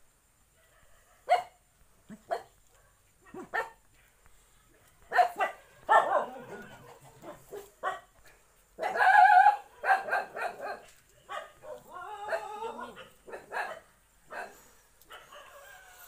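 A dog barking repeatedly in short barks, loudest about nine seconds in.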